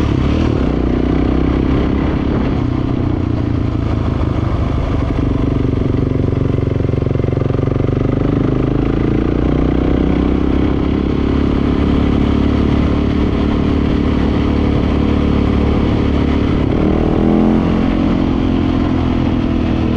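Dirt bike engine running steadily as the bike is ridden along at low speed, its pitch rising briefly as it accelerates near the end.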